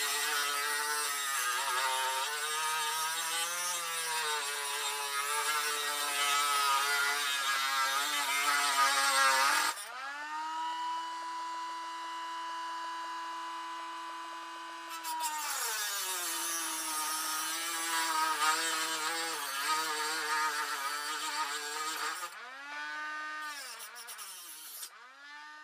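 Cordless Dremel rotary tool with a small cutting disc grinding into the steel weld on a Harley-Davidson Street 750 muffler's end cap, to cut out the exhaust baffle. Its whine sags and wavers under load over a harsh grinding hiss. About ten seconds in it is lifted off and spins freely with a steady, slightly higher whine, then grinds again, and near the end it is run in short spurts before spinning down.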